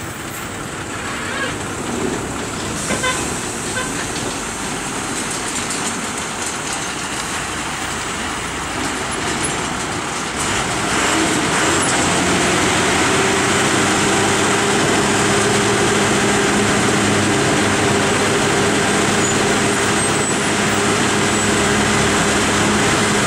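Truck engines running and vehicles passing at close range. About halfway through it gets louder and a steady engine hum at a held pitch takes over, like an engine idling close by.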